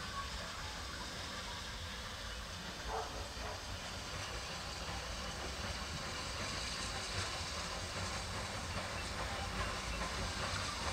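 Steam locomotive hissing steadily, over the low rumble of the train.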